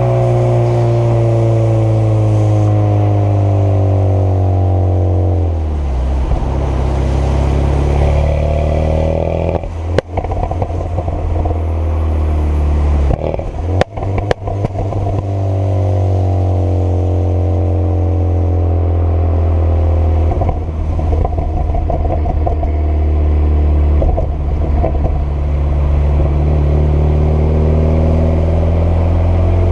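Renault Mégane 225 Trophy's 2.0-litre turbocharged four-cylinder, with the catalyst and middle silencer removed, running through a loud straight-through exhaust. The revs fall away at first, then come crackles and a few sharp pops about ten and fourteen seconds in, before the revs climb slowly again and rise once more near the end.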